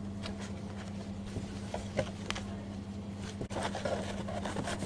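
Light handling of a reusable cloth sanitary pad and its packaging: a few soft taps and rustles over a steady low electrical hum.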